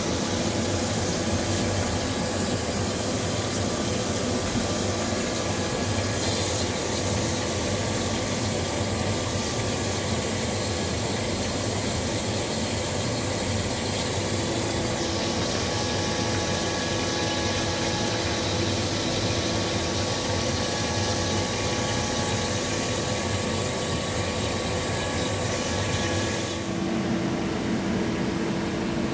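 AgieCharmilles CUT E350 wire EDM machine running through a cut: a steady machine hum with several held tones over a hiss. The hiss drops back suddenly near the end.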